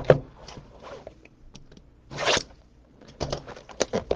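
Trading-card packaging being handled and torn open: crinkling and clicking, with one short loud rip about two seconds in and a quick run of crisp clicks near the end.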